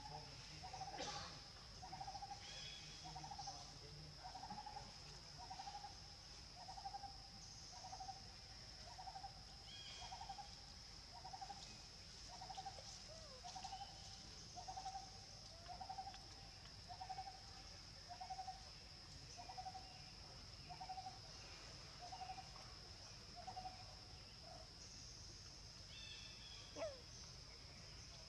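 A bird calls one short, low note over and over, a little more than once a second, and stops a few seconds before the end. Behind it runs a steady, high-pitched insect drone, and there is a single sharp click near the end.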